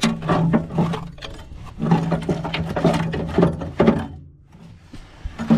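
A hand rummaging through loose bolts and small metal parts in a steel storage box: a dense clatter and scraping of metal pieces for about four seconds, then quieter.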